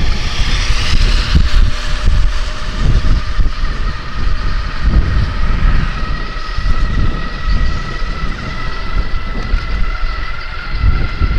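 Wind buffeting the microphone of a moving electric bike, a gusty low rumble. From about halfway, the bike's electric motor adds a faint whine that creeps slightly up in pitch as the bike speeds up.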